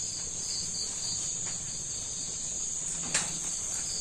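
Night insect chorus of crickets: a steady high trill with a second, pulsing chirp repeating under it. A single sharp click stands out about three seconds in.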